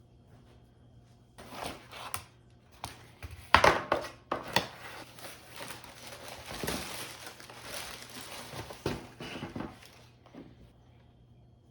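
Packaging crinkling and rustling as it is handled, in a run of irregular bursts that starts about a second and a half in, is loudest around the fourth second, and stops about ten seconds in.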